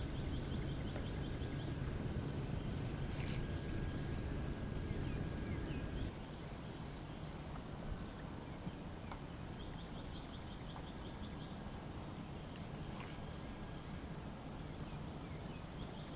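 Insects calling in waterside vegetation: a steady high-pitched drone with short runs of rapid chirps coming and going. Under it is a low rumble that stops about six seconds in.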